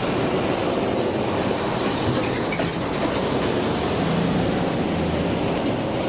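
Freight train hauled by a DE10 diesel locomotive moving along the track: a steady noise of wheels on rail mixed with the locomotive's engine.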